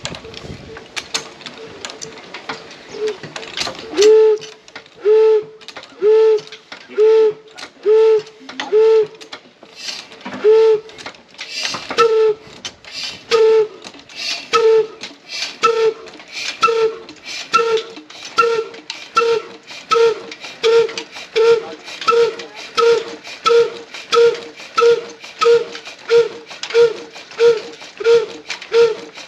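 Old single-cylinder black diesel engine with a big flywheel being turned over with clicks and knocks, then catching and firing, each slow exhaust beat a short hooting note. The beats come unevenly at about one a second a few seconds in, then quicken and settle at about one and a half a second as the engine comes up to speed.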